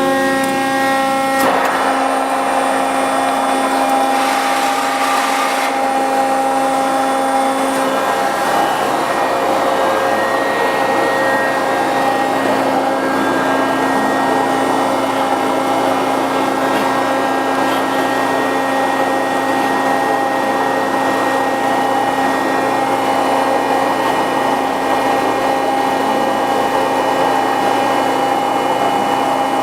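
Hydraulic pump and motor of a 60-ton CNC hydraulic press brake running, a steady droning hum with a constant whine. The whine changes pitch about a second and a half in and again around eight seconds in, with a short hiss between about four and six seconds.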